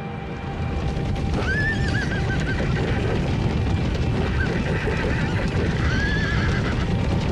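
A herd of horses galloping in a dense rumble of hooves, with horses whinnying three times, about one and a half, four and a half and six seconds in. Background music plays underneath.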